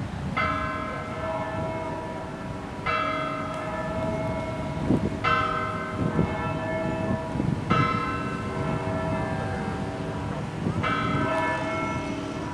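A bell tolling, struck five times about every two and a half seconds, each stroke ringing on until the next.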